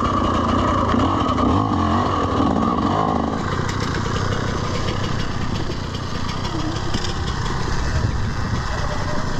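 A 2020 TM EN300 TPI two-stroke dirt bike engine running as the bike rides down a muddy trail. Its higher note eases off about three seconds in.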